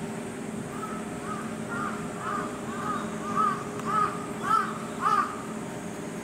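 A crow cawing in a rapid run of short, harsh caws that grow louder toward the end, over a steady low background hum.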